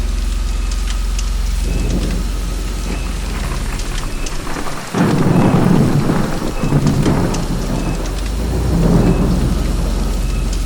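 Steady rain falling during a thunderstorm, with a low rumble of thunder underneath. About halfway through a loud peal of thunder breaks in suddenly and rolls on for a couple of seconds, and another rumble swells near the end.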